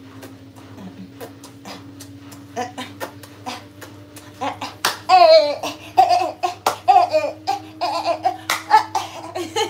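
A woman laughing, starting about halfway in and going on in a run of loud, high, wavering peaks. Under it a faint steady low hum and scattered clicks.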